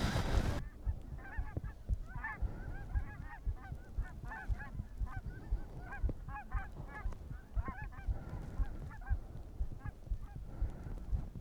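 Geese honking, many short overlapping calls from a flock, thinning out toward the end. At the very start a loud shotgun volley dies away about half a second in.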